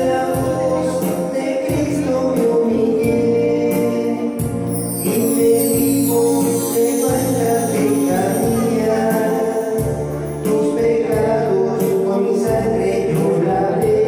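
A choir singing a Catholic hymn in Spanish to amplified instrumental accompaniment with a prominent bass line and light percussion.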